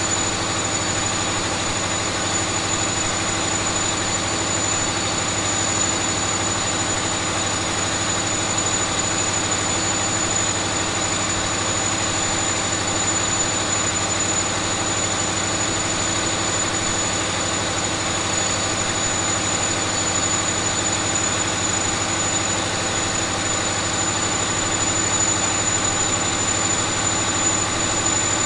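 Caterpillar 3508B twin-turbo V8 diesel engine running steadily on an engine dynamometer, with a steady high whine over the engine noise.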